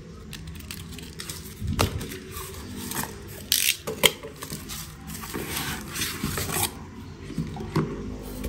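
Unboxing handling sounds: packaging and small hard parts being handled, with irregular clicks and knocks and a few brief rustles or scrapes.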